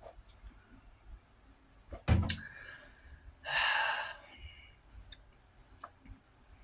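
A single knock on a table about two seconds in, then a short, breathy exhale after a drink of water.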